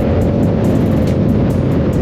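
Yamaha R7's 689 cc parallel-twin engine through an aftermarket M4 exhaust, running at a steady cruise with a low, loud exhaust note.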